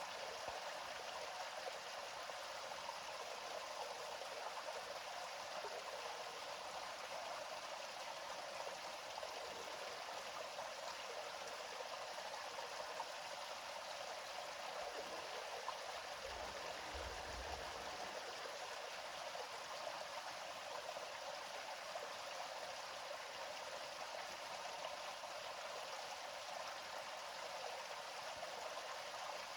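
Gentle river water flowing steadily: an even, unbroken rushing and babbling with hardly any low rumble.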